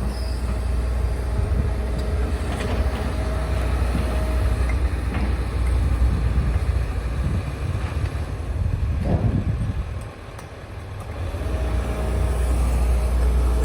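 Low, steady engine noise, dropping away about ten seconds in and building back up near the end, with a few faint clicks and knocks.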